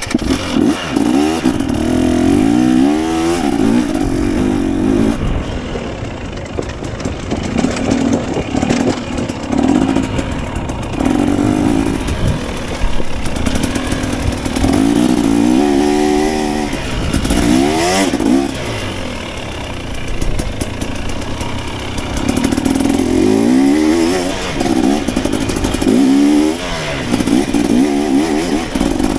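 KTM 250 dirt bike engine running under load, its pitch climbing and dropping again and again as the rider accelerates, shifts and backs off along the course.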